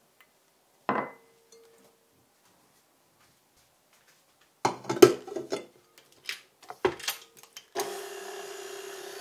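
A glass mixing bowl clinks once with a short ring, then knocks and clunks several times as it is locked onto a KitchenAid tilt-head stand mixer and the head is lowered. Near the end the mixer's motor starts and runs steadily, its wire whip beating butter and sugar.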